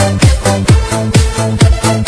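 Electronic dance music with a steady four-on-the-floor kick drum, about two beats a second, over held bass and chord notes.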